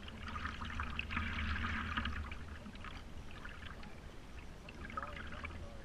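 Water trickling and lapping against the nose of a stand-up paddleboard as it glides through calm water. It is strongest in the first couple of seconds, then fades.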